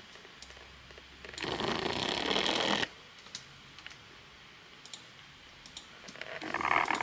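Laptop keyboard typing and mouse clicks, a scatter of light clicks over a low hum. About a second and a half in, a louder rushing noise lasts about a second and a half, and a similar one starts near the end.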